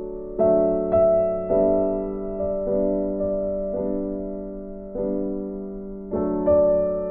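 Soft background piano music: slow notes and chords struck one after another, each left to ring and fade.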